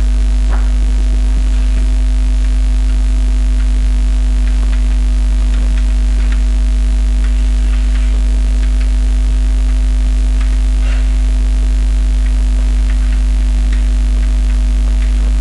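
Loud steady electrical mains hum with a faint buzz over it. Faint short scratches and taps of chalk writing on a blackboard come through it here and there.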